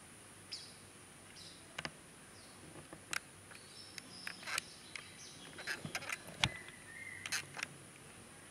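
Outdoor ambience: a steady high insect drone with many short bird chirps and sharp clicks scattered through the middle, the loudest click a little after six seconds in.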